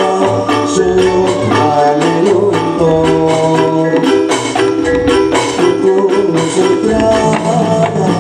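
Dolalak dance accompaniment music: a keyboard melody of held notes over a steady beat of percussion.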